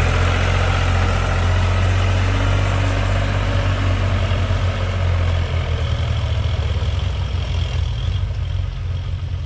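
Heavy diesel engine running steadily with a deep low hum, which eases off slightly about halfway through.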